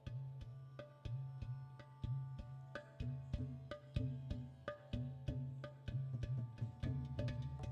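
Instrumental Indo-Western fusion music played live: a low held bass note under regular sharp hand-percussion strokes, with plucked string notes above.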